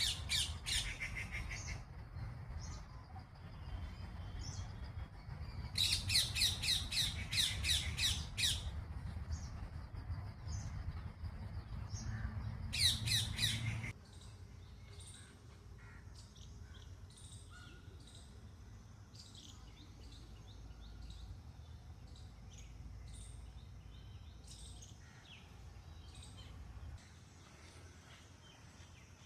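Peafowl calling in three loud bursts of rapidly repeated, harsh high notes, with smaller birds chirping throughout. A low rumble underlies the first half and cuts off abruptly about halfway through.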